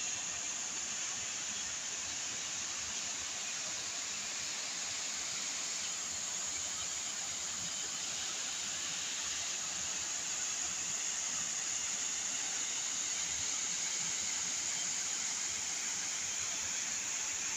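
Steady rushing and splashing of water from a large tiered plaza fountain, an even hiss with no breaks.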